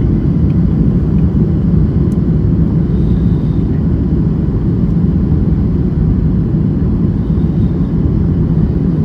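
Steady, loud low rumble of an airliner's engines and airflow during landing, even in level throughout.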